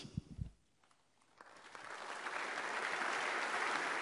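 A large crowd of several hundred people applauding. The clapping begins about one and a half seconds in, after a moment of near quiet, and swells to steady applause.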